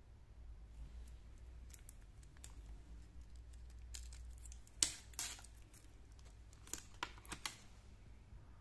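Stainless steel watch bracelet and its clasp being handled: faint clicks and rattles of the metal links, a sharp click about five seconds in as the clasp is worked open, and a quick run of three small clicks near the end.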